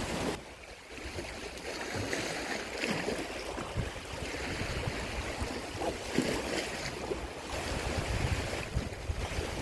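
Small sea waves washing and lapping against shore rocks, with gusts of wind buffeting the microphone.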